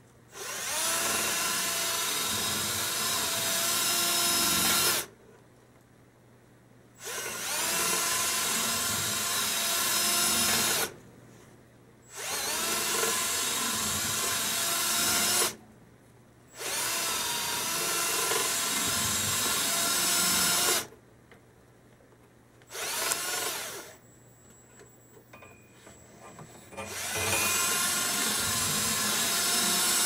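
Handheld power drill spinning a flexible-shaft brush through the wood boiler's vertical heat-exchanger tubes. It runs in bursts of about four seconds with short pauses between them, six runs in all, one of them brief past the middle.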